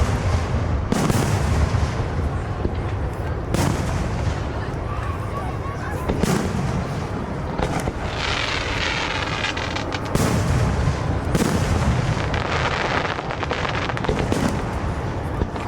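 Aerial fireworks shells bursting in a steady string of loud booms, one every second or two. About halfway through, a long crackle follows one burst, and another comes near the end.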